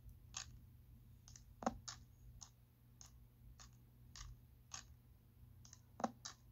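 Faint, irregular light clicks, about two a second, of plastic action figures knocking together as the toy fight plays back through a phone's speaker.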